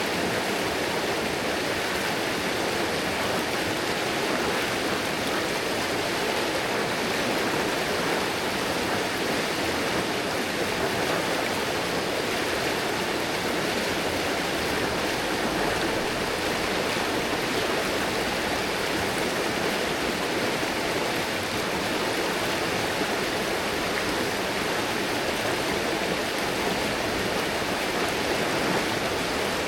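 River water rushing steadily over rocks, a continuous even rush with no breaks.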